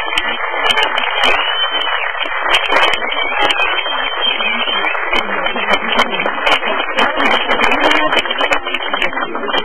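Crowd clapping and cheering, sharp hand claps over a steady din of voices.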